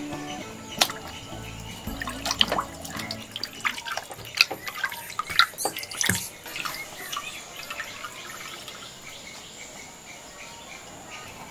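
Water splashing and dripping as a whole raw chicken is washed by hand in a clay bowl, with many small splashes in the first half that thin out later as it is lifted from the water.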